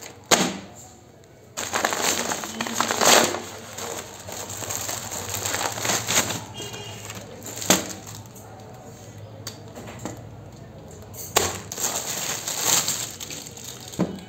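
A parcel being unwrapped by hand: plastic packaging crinkles and tears in several irregular bursts, with a few sharp clicks among them.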